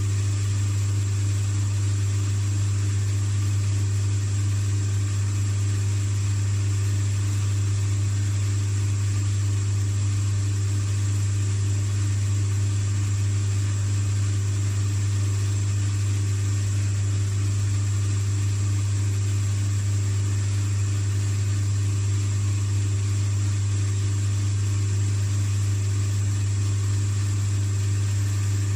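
Shoe finishing machine's motor running steadily with a strong low hum while a leather sole is held to its spinning sanding wheel to sand it flush with the welt.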